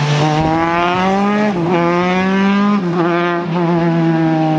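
Formula 3 race car's four-cylinder engine accelerating hard away through the gears, its pitch climbing, with quick upshifts about a second and a half and just under three seconds in. A steady low hum runs underneath.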